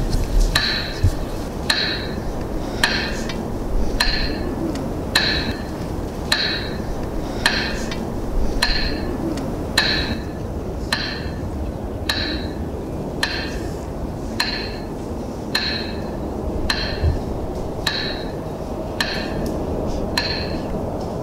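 Metronome beating slowly, a sharp tick with a short ringing tone about once a second, marking a minute of silence.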